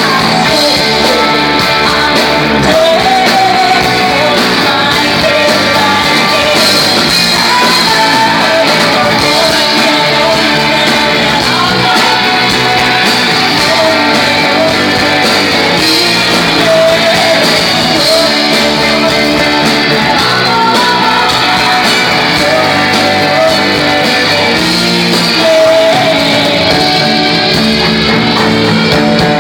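Rock band playing a song live, electric guitars and drums under a singer's wavering vocal line, loud and unbroken throughout.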